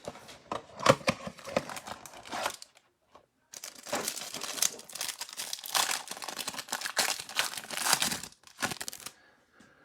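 Crinkling and tearing of the packaging of a trading-card hanger box being ripped open and its plastic-wrapped cards unwrapped, in two stretches with a short break about three seconds in.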